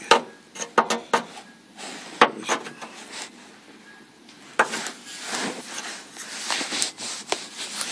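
A few sharp clicks and knocks in the first couple of seconds, then scraping and rubbing from about four and a half seconds in, as a wood-burning tool's metal tip is handled against a drilled sheet-metal body panel.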